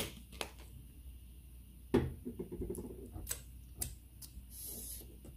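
A few light clicks and knocks of a fork and a hot-sauce bottle being handled over a platter of noodles, with a short hiss near the end.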